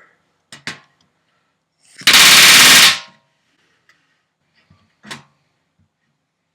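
Pneumatic rivet gun hammering a flush countersunk aircraft rivet home in one rapid burst about a second long. A couple of sharp clicks come just before it, and another follows.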